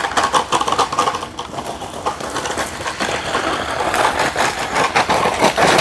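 Electric motor and drivetrain of a DEERC 9308E 1:16 RC monster truck whirring as it is driven on the maximum speed setting, with many irregular clicks and knocks.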